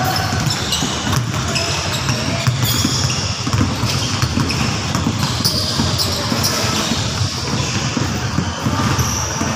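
Several basketballs being dribbled and bouncing on a hardwood gym floor, an irregular overlapping patter of knocks in a large, echoing gym hall.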